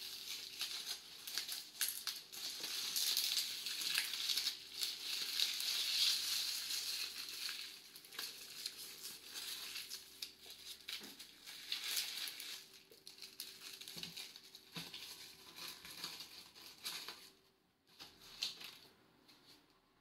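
Long lemongrass leaves rustling and crinkling as they are bent, twisted and knotted by hand, with many small crackles. The rustling dies away near the end.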